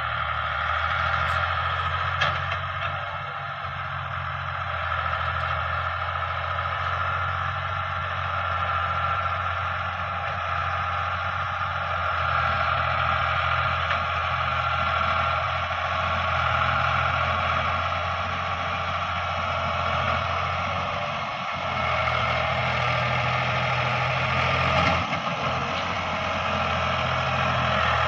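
Ford 4610 tractor's diesel engine running steadily under load as it pulls a heavily overloaded trolley.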